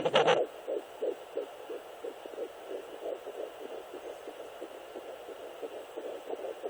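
Sonoline B fetal doppler picking up a fetal heartbeat at 10 weeks: fast, even pulses about three a second, around 180 beats a minute, over a steady hiss. A loud burst of scratchy noise dies away just at the start.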